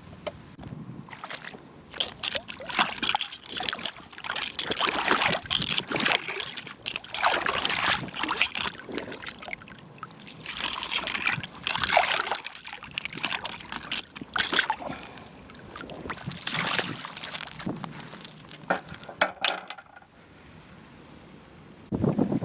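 Shallow water splashing and sloshing in irregular bursts, with short pauses between, stopping about 20 seconds in.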